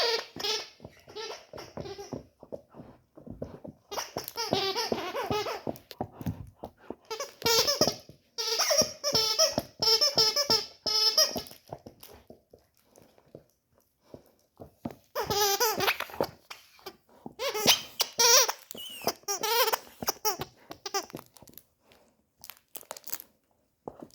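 A dog biting a squeaky toy, making it squeak in rapid runs of squeaks, in several bursts with short pauses between.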